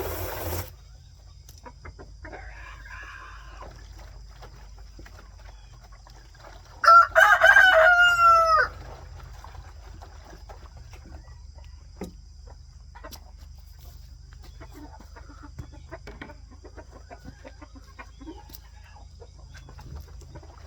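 A rooster crows once, one call almost two seconds long, about seven seconds in. Hens cluck softly around it.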